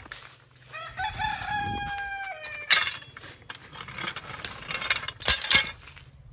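A rooster crowing once, a stepped call with a long held note that drops at the end. Then comes a loud knock about three seconds in and more knocks near the end, as the tractor's steel linkage arms are handled and laid on the ground.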